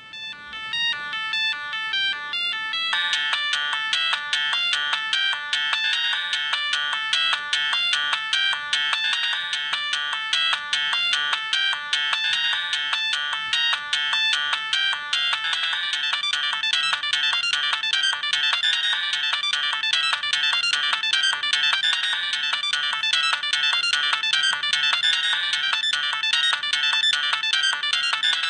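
Siemens A31 mobile phone playing one of its ringtones through its small loudspeaker: a quick electronic melody of short notes. The tune begins sparse and fills out with more notes at once about three seconds in.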